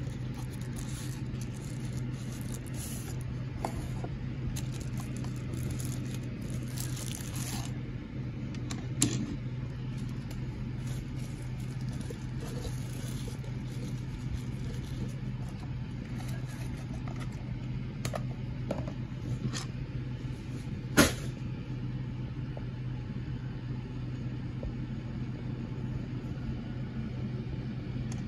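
Cardboard box and packaging rustling and crinkling as it is opened by hand for the first several seconds, then a few short sharp knocks, the loudest about 21 seconds in, over a steady low background hum.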